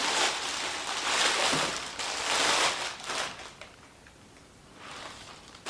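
Clear plastic bag crinkling and rustling as it is pulled off a cylinder head, in several surges over the first three seconds. It goes quiet for about a second, then gives another short rustle near the end.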